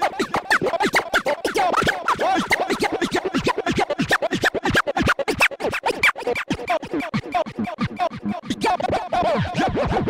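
Turntable scratching: a sample on vinyl dragged back and forth in rapid, chopped strokes, many per second, with quick rising and falling pitch sweeps.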